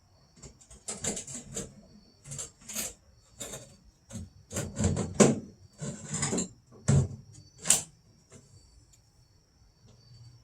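Irregular knocks, clunks and short scrapes of hand work on a car door while its glass is fitted, over steadily chirping crickets.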